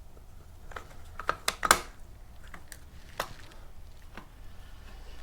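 Scattered sharp clicks and taps of hard plastic and metal parts being handled while a string trimmer's handle is fitted back together, a quick cluster about a second in and a couple of single clicks later.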